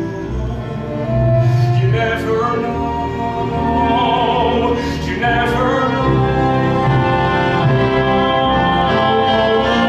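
Pit orchestra playing a Broadway musical score with operatic-style singing over it, swelling about a second in.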